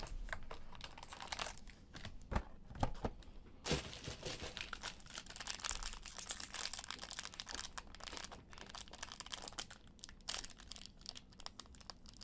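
Foil trading-card pack crinkling and tearing as it is worked open by hand, a few scattered crackles at first, then denser crinkling from about four seconds in.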